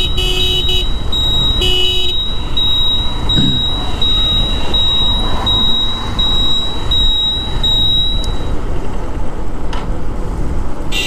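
Honda CB Shine SP 125 motorcycle under way, its single-cylinder engine running on the last of its fuel and starting to misfire, under steady wind and road noise. A turn-signal buzzer beeps evenly, about once every 0.7 s, and stops about 8 seconds in.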